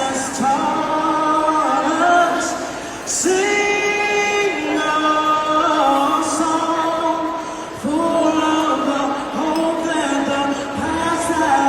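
Music with a singing voice holding long, gliding notes.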